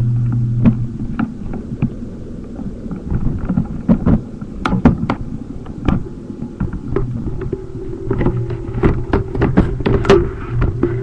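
Handling noise from a webcam computer being moved about: many irregular knocks, bumps and clicks against its own microphone, over a low hum that comes and goes.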